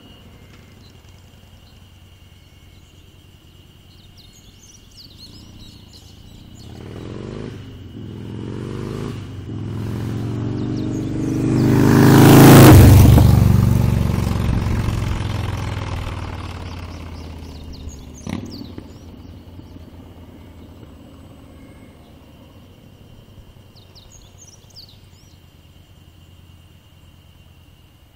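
Harley-Davidson Dyna V-twin motorcycle riding up, passing close by at speed and fading away. The engine grows louder to a sharp peak about halfway through, and its pitch drops as it goes past.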